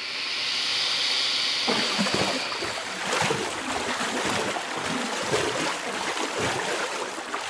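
Steady rushing, water-like noise that swells in at the start, with irregular low thumps from about two seconds in.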